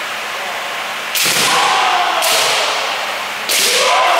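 Kendo sparring: three sharp cracks of bamboo shinai striking armour, about a second apart, each with a drawn-out kiai shout from the fencers and a reverberant tail.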